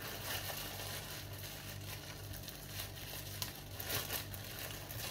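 Plastic packaging crinkling and rustling as it is handled, in irregular little crackles, over a low steady hum.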